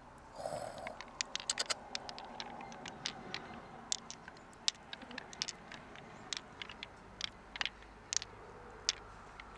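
Small purple pearls clicking against one another as they are picked out of an opened giant mussel and dropped into a cupped palm, with light taps and scrapes on the wet shell. The clicks are short and irregular, several a second.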